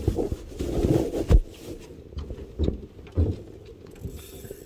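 Several dull thumps and knocks on an aluminum fishing boat's hull and deck, over a low wind rumble.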